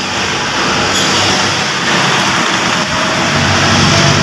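A motor vehicle engine running steadily, with a low hum that grows stronger about three seconds in.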